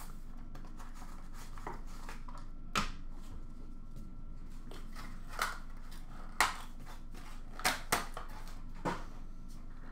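Handling noises as a hockey card box is opened and its cards are taken out and set down on a glass counter: about six separate clicks and taps spread out, with quiet between them.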